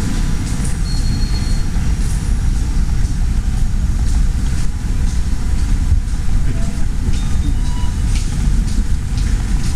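A loud, steady low rumble with a few faint ticks over it.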